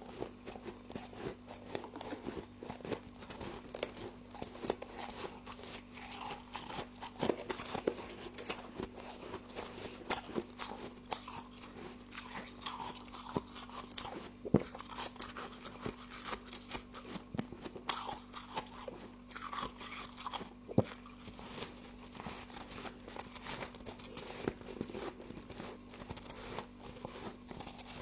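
A person biting and chewing mouthfuls of frost, a continuous crunching and crackling with a few sharper, louder bites. A steady low hum runs underneath.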